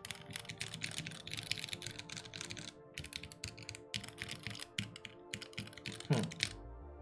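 Rapid clatter of mechanical keyboard keys being pressed: two runs of dense clicks with a short pause about three seconds in. Background music plays underneath, and a quick falling swoosh sounds near the end.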